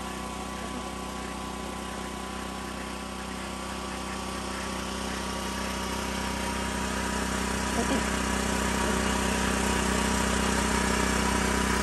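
Engine-driven generator running with a steady hum, growing louder over the second half.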